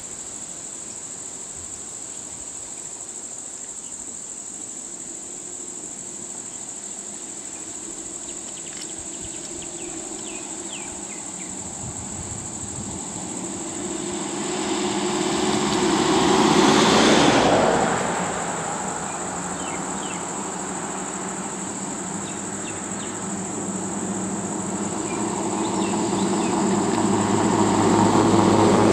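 Steady high-pitched insect drone, with motor vehicles driving by on an asphalt road: one grows louder and passes about two-thirds of the way through, and another approaches near the end.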